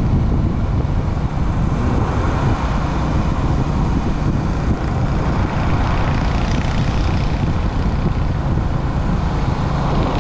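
Motorcycle engine running steadily at cruising speed, with wind and road noise from riding.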